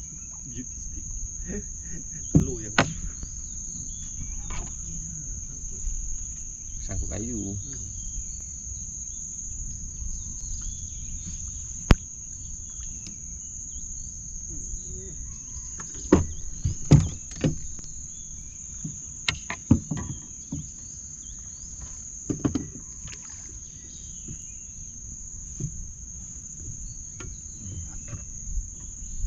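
A chorus of insects holding one steady, high-pitched buzz throughout, over a low rumble. Scattered sharp clicks and knocks come through it, several close together about sixteen to seventeen seconds in.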